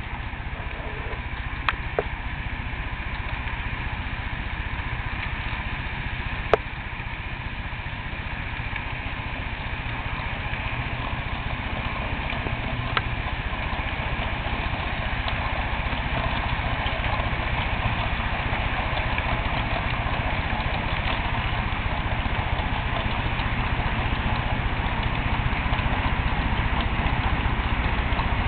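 HO scale model train of empty Trinity RD-4 coal hoppers running along the layout's track: a steady rolling rumble that grows slowly louder as the train comes closer, with a few sharp clicks in the first half.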